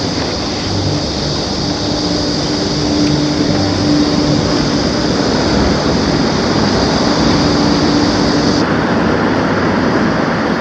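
Steady, loud noise of a shared bicycle being ridden along a rough city road, with street traffic around it.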